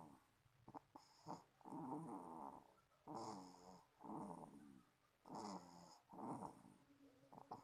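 A sleeping baby snoring, a quiet rasping snore on each breath in and out, about one a second.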